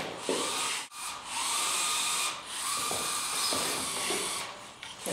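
Small electric gear motors of FTC competition robots whining as the robots drive and swing their arms, over a steady hiss. The whine rises and falls and drops out briefly about a second in and again near the end.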